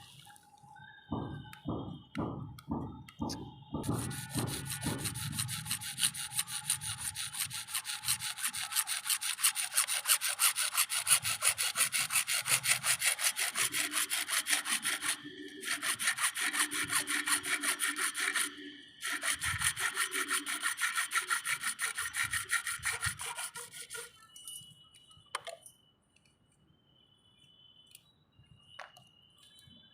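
Hand saw cutting plastic CPVC pipe in fast, steady back-and-forth strokes, about four a second. It starts about four seconds in, breaks off briefly twice, and stops well before the end.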